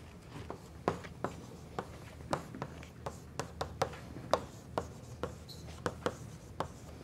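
Chalk writing on a blackboard: a quick, uneven series of sharp taps and short strokes as letters are chalked.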